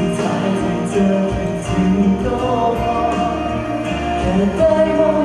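Male singer singing live into a handheld microphone over instrumental backing music.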